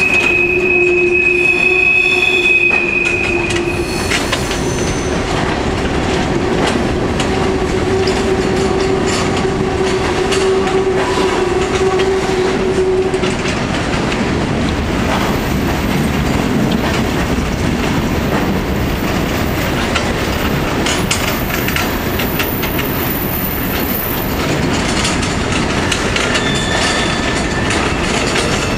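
Empty coal hopper cars of a CSX freight train rolling past on a curve: steady rumble and clickety-clack of the wheels, with a high wheel squeal in the first few seconds and a lower squeal tone that fades out about halfway through.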